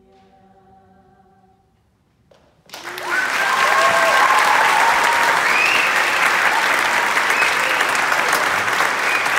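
The final held chord of an a cappella girls' vocal quartet fades out, and after a short silence the audience starts applauding suddenly about three seconds in, loud and sustained, with some cheering voices.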